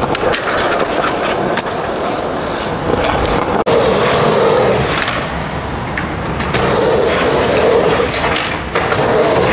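Skateboard wheels rolling on smooth concrete with a continuous rumble, broken by several sharp clacks of the board.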